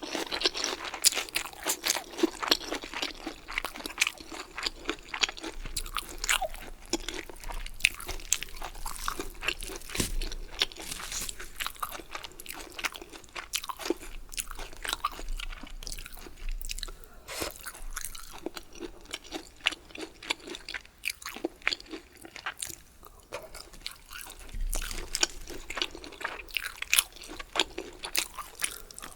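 Close-miked eating: steady chewing with many crisp crunches, from a meal of bamboo shoots and rice with tteokgalbi. The crunching eases off briefly about two-thirds of the way through, then picks up again.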